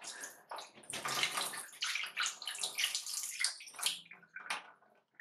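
Water splashing into a bathroom sink in uneven gushes, first from the running tap and then squirting out of a water-filled nano-tape squishy ball that has sprung a leak; the splashing dies away near the end.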